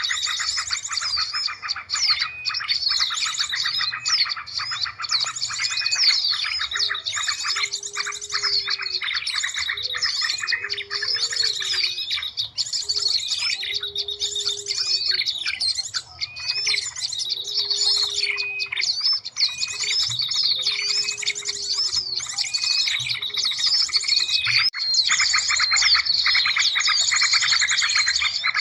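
Bird-lure recording of many small birds chirping and trilling at once in a dense, continuous chorus. Through the middle, a low short note repeats about every one and a half to two seconds under the chirping.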